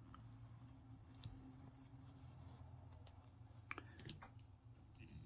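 Near silence over a low steady hum, with a few faint clicks from handling a crochet hook and yarn.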